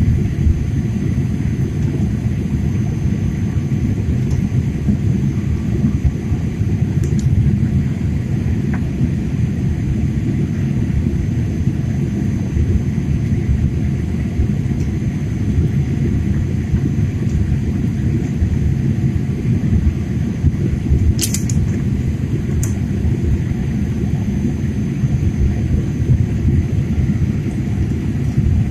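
Steady low rumble of a jet airliner's engines and airflow heard inside the passenger cabin during the climb after takeoff. Two faint clicks about three-quarters of the way through.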